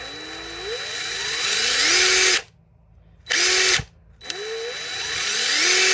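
DeWalt DCF885 cordless brushed impact driver run with no load on the trigger. It speeds up from low speed over about two seconds and stops, gives one short burst, then speeds up again. The worn motor has just been brushed out and now sounds better at low speed.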